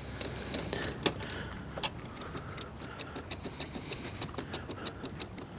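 Caravan jockey wheel being wound up by its handle: a couple of sharper clicks in the first two seconds, then a steady run of light ticks, about five a second, as the wheel lifts.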